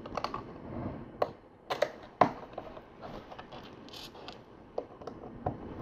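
LEGO plastic tiles and bricks clicking and tapping as they are handled and pressed into place. The clicks are short and irregular, with the sharpest one about two seconds in.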